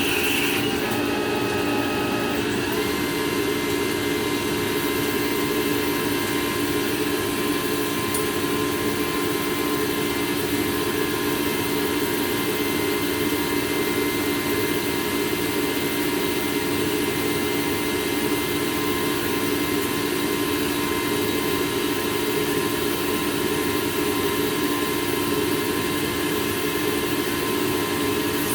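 Metal lathe running steadily, with a constant machine hum and a thin whine whose pitch changes about two and a half seconds in and then holds steady.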